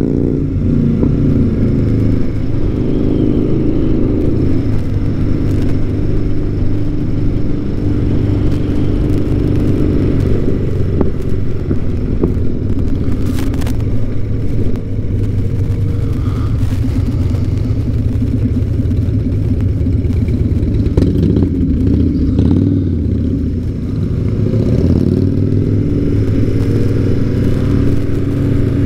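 BMW R100 air-cooled boxer twin running under way, its revs rising and falling through the gears, with a short drop in revs followed by a pickup near the end.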